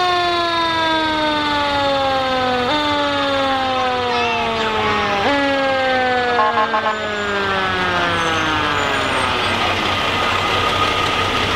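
Fire rescue truck's mechanical siren, kicked up three times, each time jumping up in pitch and then slowly coasting down. After the last kick it winds down and dies away about four-fifths of the way through. A brief stuttering high tone sounds about halfway.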